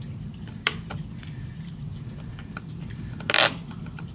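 Handling noise from a pocket multi-tool being worked at a plastic cable tie: a sharp click less than a second in, a few faint ticks, and a short, louder scraping rustle near the end, over a low steady hum.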